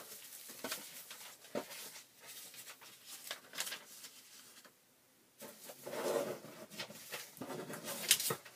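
Paper and packing sheets rustling and crinkling as they are handled and leafed through, in short irregular bursts with a pause about halfway, then denser rustling and a sharp click near the end.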